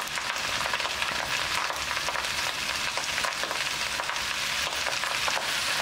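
Fried rice sizzling steadily in a thin steel kadai over a high flame, with small scattered crackles, as dark soy sauce is poured onto it.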